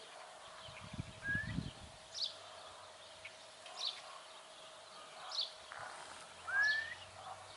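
Birds calling outdoors: a short high chirp repeats about every second and a half, and a louder rising whistled note comes twice, about a second in and near the end. A few dull low thumps sound about a second in.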